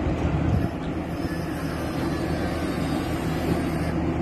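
Big-rig truck's diesel engine running steadily at idle, a low even hum with a slightly louder rumble in the first half-second.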